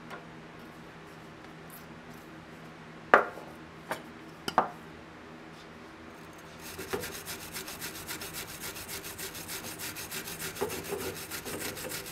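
A few sharp metal knocks, then a hand file rasping back and forth on the steel jaws of needle-nose pliers clamped in a bench vise, about three to four strokes a second, starting a little past halfway.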